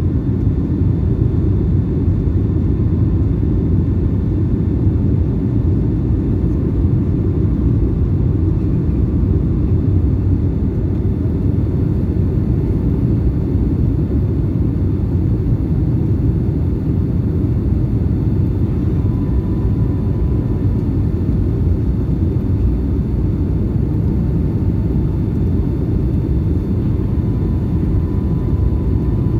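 Steady, low cabin rumble of a Boeing 757-200 in flight, engine and airflow noise heard from a window seat. A faint high whine comes in briefly twice in the second half.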